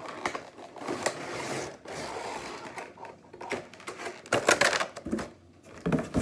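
Cardboard box and clear plastic packaging of a nail practice hand rustling and crackling as it is unpacked by hand, with a louder clatter about four and a half seconds in and a sharp knock near the end.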